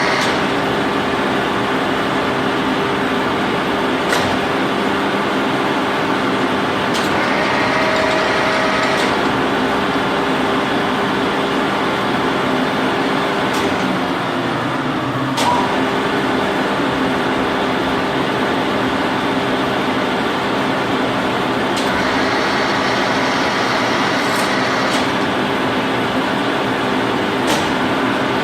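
1979 Heckert FSS 315 vertical knee-type milling machine running with its feed drive engaged: a steady mechanical drone of gears and motor holding several tones, with occasional sharp clicks. About halfway through one of the tones drops out for a second or two and then returns.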